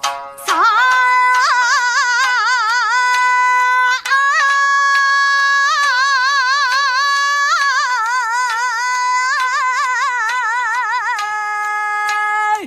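A woman singing a long, drawn-out "Ah" without words, holding each note with a wide, slow vibrato and sliding between pitches. There is a brief break for breath about four seconds in, and she steps down to a lower held note near the end.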